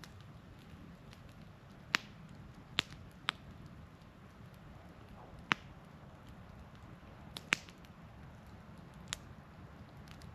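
Wood campfire crackling: about seven sharp, irregular pops of burning firewood, two of them close together, over a faint low steady rumble of the fire.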